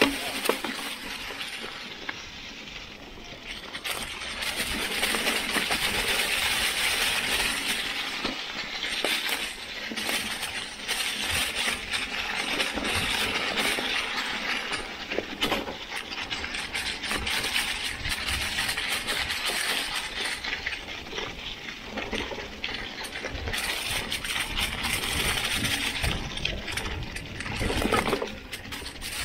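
Mountain bike tyres rolling downhill over a trail thick with dry fallen leaves, a steady rustling crunch that swells and eases in waves. Through it run many small clicks and rattles from the bike.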